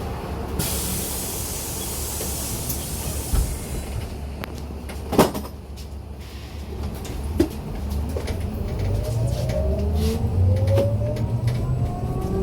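Inside a MAZ-303E23 electric bus: a hiss of compressed air lasting about four seconds, a sharp knock, then the electric traction motor's whine rising steadily in pitch as the bus pulls away.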